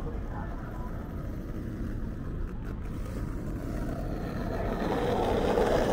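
City street ambience: a steady low traffic rumble, with a motor vehicle coming closer and growing louder over the last second or so.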